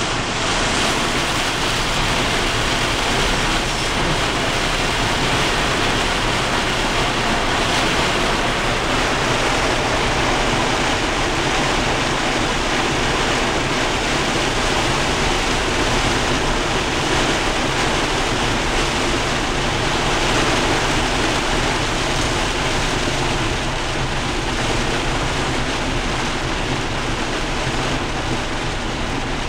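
Heavy wind-driven rain and strong straight-line wind gusts of a severe thunderstorm hitting a vehicle, heard from inside the cabin as a steady, dense rush of noise.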